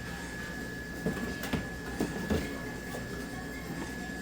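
Drink cans knocking lightly against a vending machine tray as they are set into their slots, about four knocks between one and two and a half seconds in, over a faint steady high whine.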